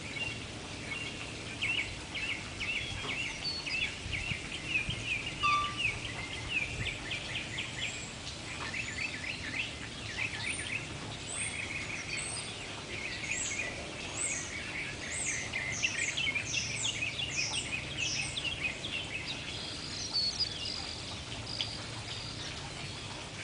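Songbirds singing outdoors: quick repeated chirps and trills throughout, with higher, sharper notes joining in the second half, over a steady low background hum.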